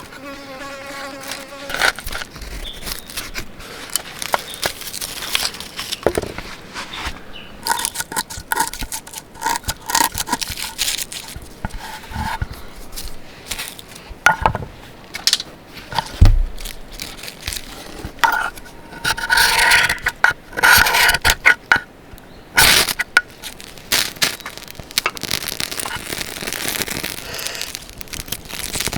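A fly buzzing close by for about the first two seconds, then a long run of scrapes, clicks and knocks.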